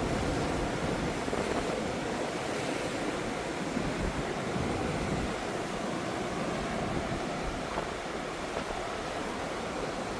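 Pacific Ocean surf washing continuously against the shore, with wind rumbling on the microphone.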